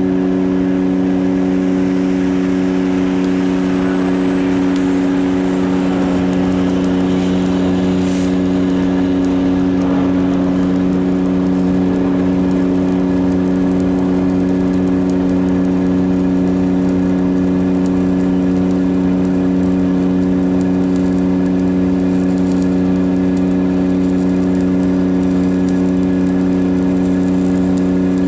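Engine running steadily at a constant speed, with the faint crackle of arc welding over it.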